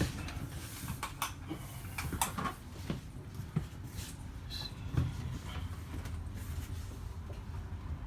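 A handful of sharp clicks and knocks, the loudest about five seconds in, over a steady low rumble.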